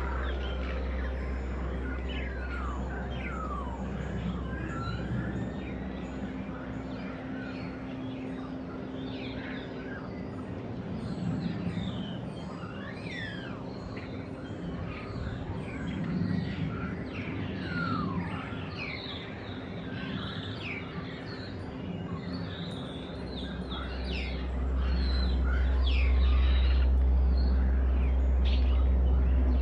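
Starlings chirping and whistling, a busy run of short calls with many quick downward-sliding whistles. A steady low rumble underlies them, dropping away for a while and coming back louder near the end.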